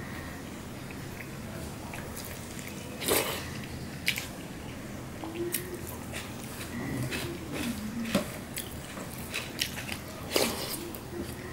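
Eating with the hand: chewing, and dal and rice being mixed by hand on a steel plate, with a few sharp clicks, the loudest about three seconds in and again near the end.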